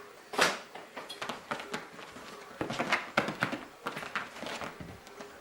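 Kittens playing and romping around a room: irregular knocks, clatters and scrabbling, with one loud knock about half a second in and a busy run of knocks near the middle.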